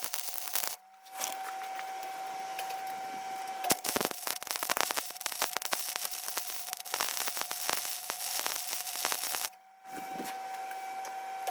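Welding arc crackling and hissing on a steel light mount, in runs broken by two short pauses about a second in and near the end.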